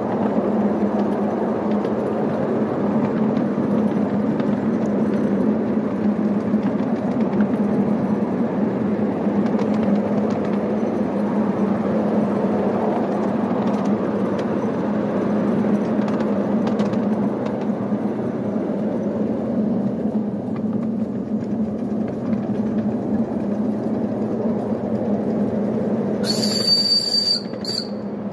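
Miniature Hunslet steam locomotive running with a wagon of rails, giving a steady rumble of small wheels on the track under the engine's steam. Near the end comes a short, high whistle blast about a second long.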